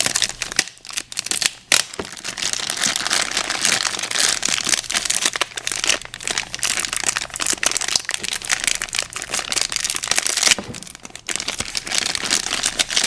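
Plastic packaging crinkling and rustling while toy pieces are handled and unwrapped, with brief pauses about a second in and about ten and a half seconds in.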